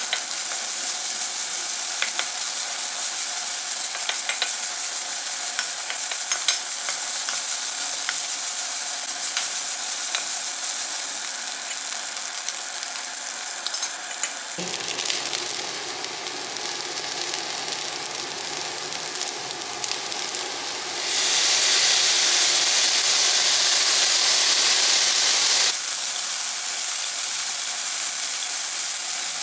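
Rice sizzling as it is stir-fried in a nonstick wok, with a wooden spatula scraping and tapping the pan. About halfway through the sound becomes lower and fuller, and about two-thirds of the way through a louder hiss runs for several seconds before the sizzle settles back.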